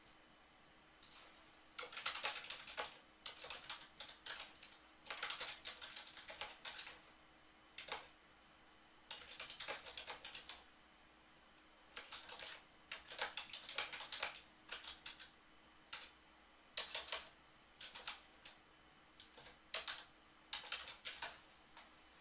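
Typing on a computer keyboard: bursts of rapid key clicks lasting a second or two, separated by short pauses.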